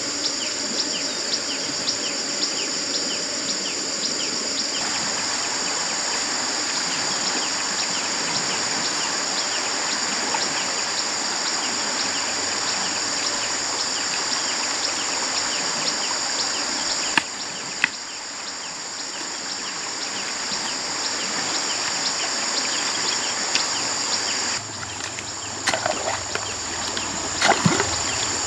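Steady, high-pitched insect buzzing with frequent short bird chirps, an outdoor ambience among wet vegetation. In the last few seconds a wooden stick strikes shallow muddy water several times, with sharp splashes.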